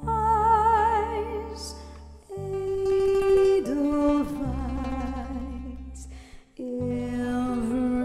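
Female singer holding long notes with a wide vibrato over a live band with bass guitar, in three phrases with short breaks about two seconds in and again near six and a half seconds.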